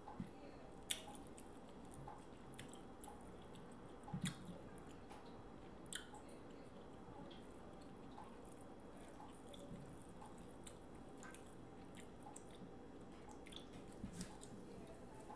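Wet squishing and small crackles of boiled shrimp shells being peeled by hand, with quiet chewing, over a low hiss. A few sharp clicks stand out, the clearest about a second in and about four seconds in.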